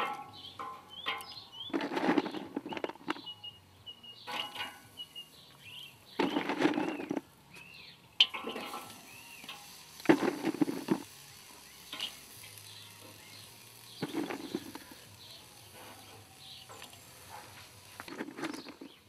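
Metal tongs and wood chunks clinking and clattering on the grate of a charcoal kettle grill as wood is added to the coals, in short bursts every few seconds, with birds chirping in the background.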